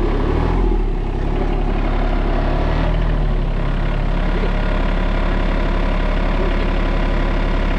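Compact tractor's engine running steadily at low speed.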